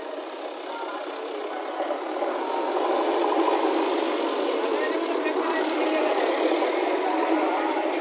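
JCB backhoe loader's diesel engine running, growing louder about two to three seconds in.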